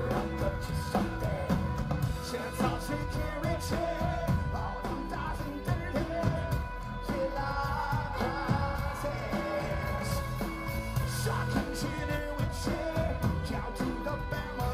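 Live rock band playing, with electric guitars, drums and keyboards and a voice singing over it, heard from within the crowd.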